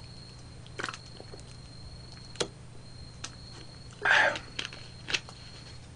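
A person drinking cola straight from a large plastic bottle: a few soft clicks, and a short breathy noise about four seconds in.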